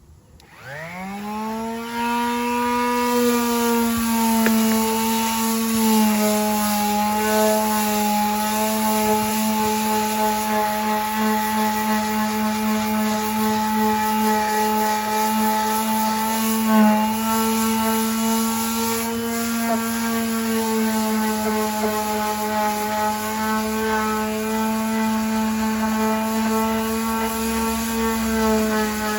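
Electric power sander with 60-grit paper spinning up over the first two seconds, then running at a steady high hum while it sands paint off a car's trunk lid, its pitch wavering slightly as it is worked across the panel.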